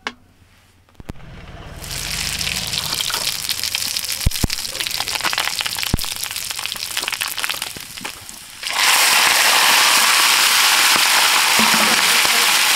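Cooking oil heating in an iron wok, crackling and popping. About two-thirds of the way in, raw chicken pieces go into the hot oil and it breaks into a much louder, steady sizzle.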